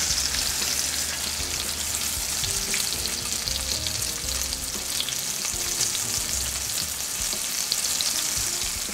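Flour-dredged veal loin chops sizzling steadily as they brown in hot oil and butter in a skillet, a little louder at the start.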